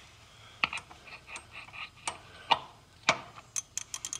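Irregular metallic clicks and clinks of a 1 1/8-inch socket being handled and fitted onto the plastic hydro filter cap, a few spaced clicks and then several quicker ones near the end.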